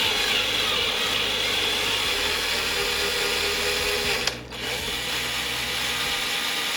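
Cordless screwdriver-drill running steadily as it drives a tap to cut a thread into a drilled hole in metal. It stops briefly about four seconds in, then runs again.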